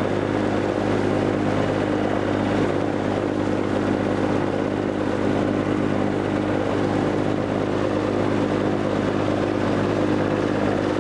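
Motorboat engine running steadily under way, a constant even drone, with the rush of water and wind over the hull.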